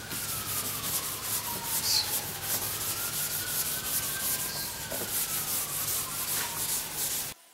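Wet 400-grit wet/dry sandpaper rubbed by hand over the cured epoxy of a surfboard rail repair, in quick repeated strokes, several a second. The sanding cuts off suddenly near the end.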